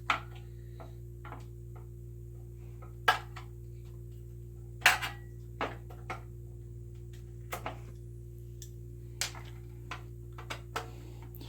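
Scattered clicks and knocks of computer parts being handled and set down on a workbench, about eight in all, the loudest about five seconds in, over a steady low hum.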